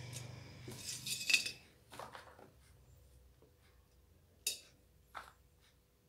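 Small beads clicking and clinking as they are handled and slid onto a thin wire, with a short scratchy rattle about a second in and a few separate sharp ticks after it.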